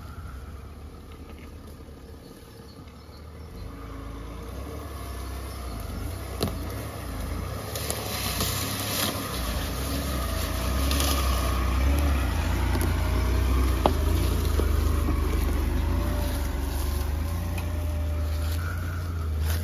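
Range Rover driving: a low engine and road rumble with wind and tyre noise above it, growing louder from about three seconds in, with a couple of light knocks.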